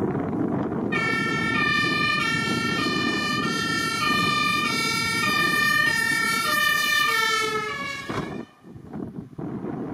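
Two-tone German fire-engine horn (Martinhorn) on a Mercedes-Benz Unimog fire engine, over the truck's engine and road noise. It starts about a second in, alternating high and low tones about every two-thirds of a second. Its pitch drops as the truck passes close by, and it cuts off suddenly about eight seconds in, leaving the engine and wind.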